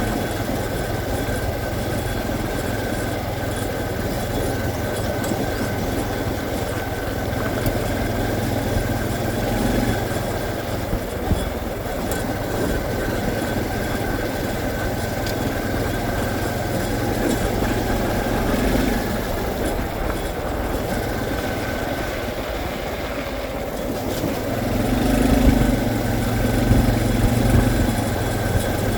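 Honda CT125 motorcycle's single-cylinder engine running steadily, the low hum swelling a little near the end.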